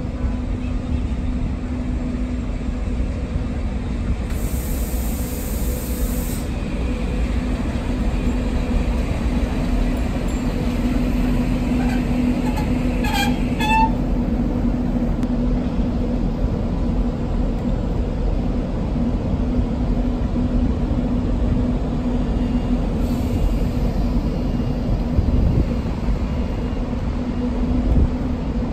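Zentralbahn HGe 4/4 II electric locomotive giving off a steady electrical hum from its traction equipment over a low rumble. Midway there is a brief run of high beeps.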